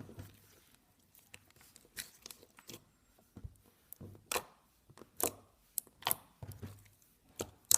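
Thick slime being squished and poked by hand, giving sharp, irregular clicks and pops.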